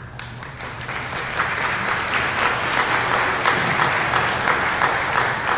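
Audience applauding, the clapping building over the first second or so and thinning out near the end.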